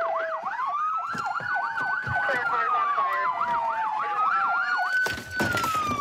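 Two police car sirens sounding together: one on a fast yelp, rising and falling about three times a second, the other on a slow wail gliding up and down. A short burst of noise cuts in about five seconds in.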